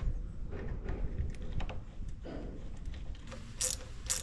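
Light clicks and small metallic rattles of a steel control cable and its lever being handled and fitted at the handlebar of a petrol yard scraper, with a few sharper clicks near the end.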